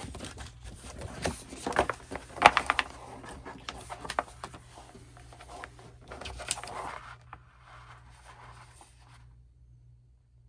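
A large folded paper poster being handled and unfolded: irregular rustling and crinkling of paper with light taps, loudest about two and a half seconds in, dying away in the last few seconds.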